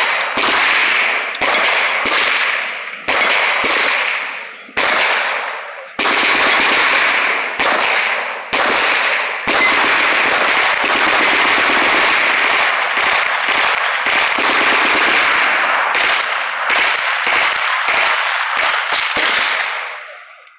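Repeated gunfire: single shots spaced a second or so apart at first, then a dense run of quick shots, several a second. Each shot leaves a long echoing tail, and the firing dies away near the end.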